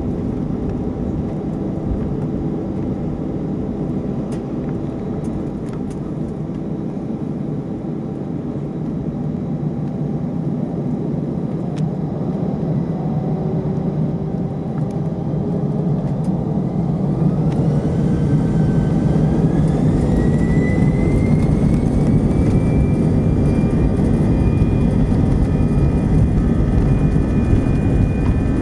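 Airbus A319 engines heard from inside the cabin: a steady hum while lined up on the runway, then after about seventeen seconds the engines spool up to takeoff thrust, a whine rising in pitch and levelling off as the noise grows louder.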